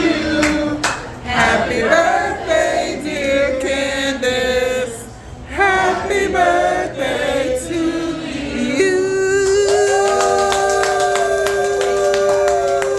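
Singing voice, with no instruments clearly heard, moving through a wavering melody and then holding one long note from about nine seconds in.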